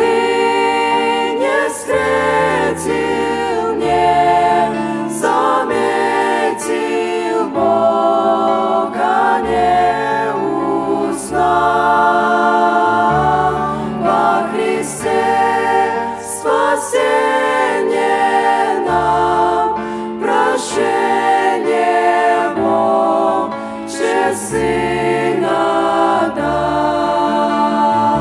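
A vocal group singing a slow song in harmony, with low held accompaniment notes beneath the voices that change every second or two.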